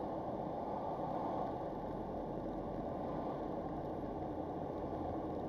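Steady, low in-cabin noise of a car being driven in slow traffic, engine and tyres heard together through a dashcam's built-in microphone.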